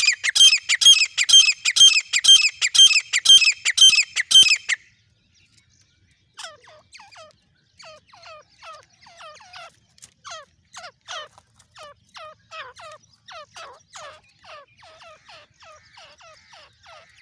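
Female grey francolin (teetar) calling. For about the first five seconds there is a loud, fast run of harsh repeated notes, about four a second. After a short pause comes a fainter, steady series of short down-slurred notes, two or three a second.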